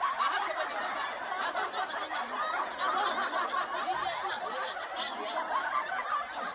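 Many people laughing and chuckling together, a dense, continuous mass of overlapping laughter.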